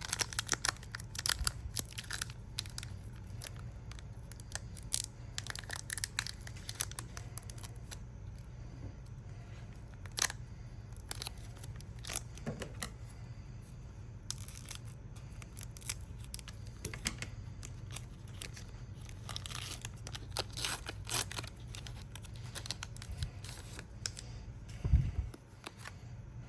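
A Pokémon card booster pack's foil wrapper being torn open and crinkled, in scattered crackles and rips, over a steady low hum.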